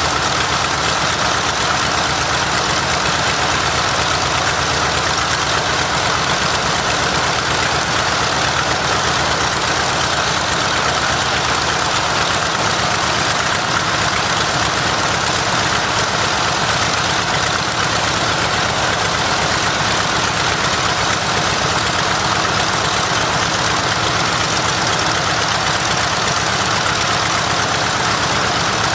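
Mitsubishi A6M Zero fighter's Nakajima Sakae 14-cylinder radial engine running steadily on a ground test run, loud and even with no change in speed.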